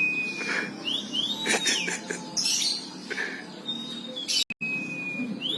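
Domestic canary singing: clear whistled notes, some held level and some rising and falling in an arch, mixed with quick chirps. There is a brief gap about four and a half seconds in.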